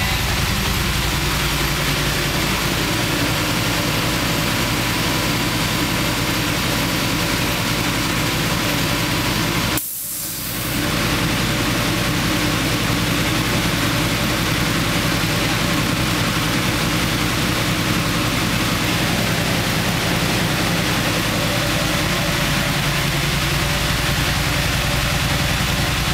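Yamaha TDM900 parallel-twin, fitted with Over aftermarket exhausts and a tuning kit, idling steadily on a dyno, with a steady rushing noise over it. About ten seconds in, the sound cuts out sharply for about a second, then returns.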